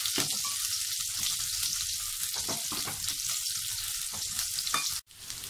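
Shallots and mustard seeds sizzling in hot rice bran oil in an aluminium wok, with a metal spoon stirring and clicking against the pan. The sound cuts out suddenly for an instant about five seconds in.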